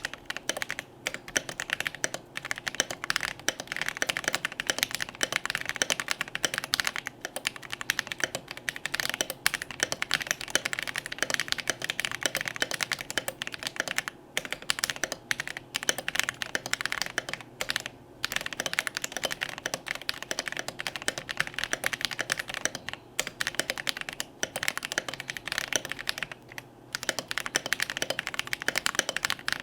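Fast, continuous typing on a Melody96 mechanical keyboard with Holy Panda tactile switches on a brass plate and thick PBT double-shot OSA keycaps: a dense stream of keystrokes, broken by a few short pauses.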